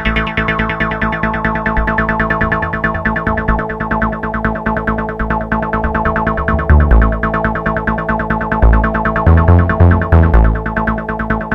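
Live electronic music played on hardware: fast repeating synthesizer notes over steady held tones, from a Roland TR-8S drum machine, Korg Electribe EMX synth and ESX sampler. Heavy deep bass hits come in about seven seconds in.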